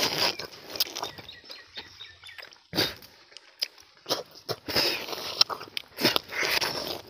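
Wet slurping and sucking as the soft jelly and sweet water are sucked out of tender palmyra fruit kernels (ice apple, nungu), in irregular bursts with a few sharp smacks and some chewing.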